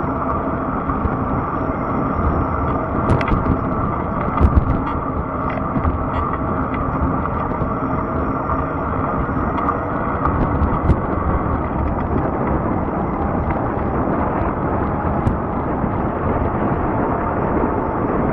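Fat-tire e-bike riding along a trail: steady rumble of tyres and wind on the microphone, with a faint steady whine underneath. A few sharp knocks and clicks come a few seconds in and again about eleven seconds in.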